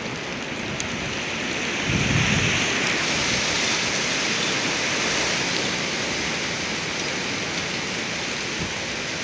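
Strong wind gusts rushing through trees in a steady hissing roar, swelling slightly about two seconds in, with a brief low buffeting of wind on the microphone at that moment.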